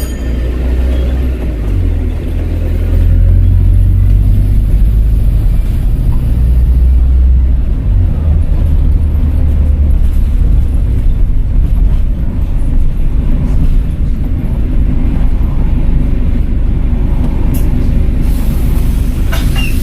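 Volvo B5LH hybrid double-decker bus running along, its diesel engine's low drone stepping up and down in pitch several times as the engine speed changes.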